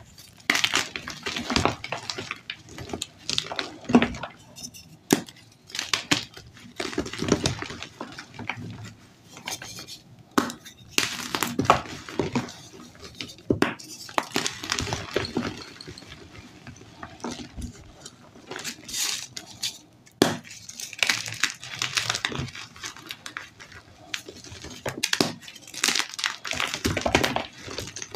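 Blocks of dyed gym chalk crushed and crumbled in the hands, giving irregular dry crunches and crumbling that come in quick clusters with short gaps between them.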